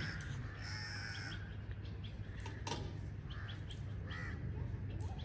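Birds calling in short bursts over a steady low rumble.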